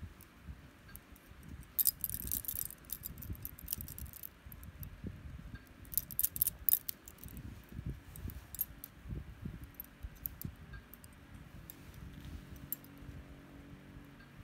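Metal bangles and rings jingling in short clusters, about two seconds in and again about six seconds in, as a hand moves while stroking and playing with a kitten, over a continuous soft rustle of fabric and handling.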